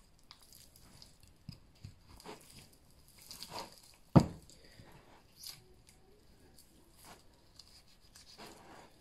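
Boning knife cutting and scraping raw meat away from a lamb leg bone, giving soft tearing and scraping sounds. About four seconds in there is a single loud thump as the lifted leg of lamb knocks against the plastic cutting board.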